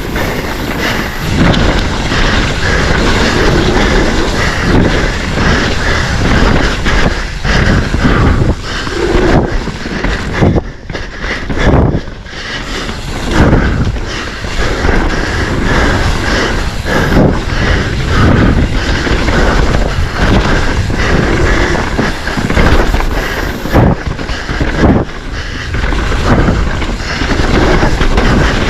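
Mountain bike rattling and clattering over rough dirt trail at race speed, with tyre noise and frequent knocks from bumps.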